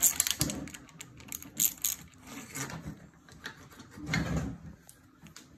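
Socket ratchet clicking in quick runs as a handlebar clamp bolt on a pit bike is backed out, with a duller knock about four seconds in as the metal handlebar is handled.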